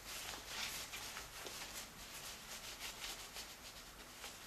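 Faint rubbing and rustling of a rag wiping spilled brake fluid off a motorcycle handlebar and brake fluid reservoir, in short irregular strokes.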